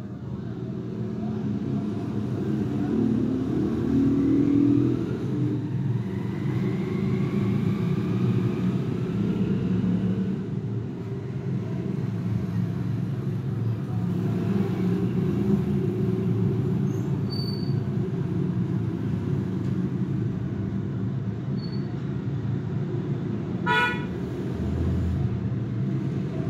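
Road traffic noise: a steady low rumble of passing engines, with a brief sharp higher sound a few seconds before the end.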